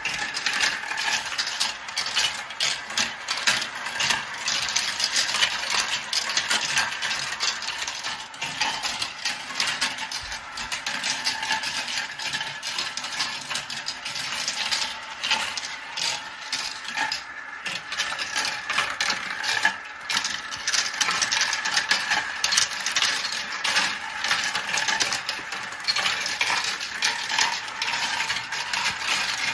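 Marbles rolling and clattering through a marble run track: a dense, continuous stream of small clicks and rattles as many marbles run at once.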